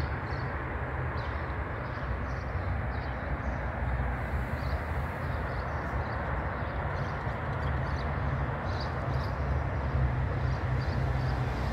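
A steady low rumble of outdoor background noise, with faint, irregular small clicks of a cat chewing wet food.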